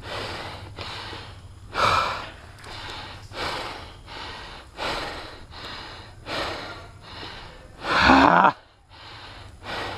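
Close-up heavy breathing of a player out of breath, panting in and out a little more than once a second, with one louder, partly voiced breath about eight seconds in.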